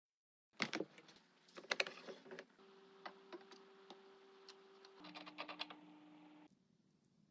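A few sharp clicks, then scattered light ticks and taps, over a faint steady hum that drops in pitch about five seconds in and fades out near the end.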